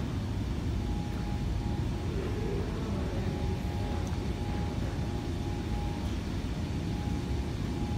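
Large 2-metre-wide steel-cord belt conveyor running fast over its troughing idler rollers: a steady low rumble with a faint steady whine above it.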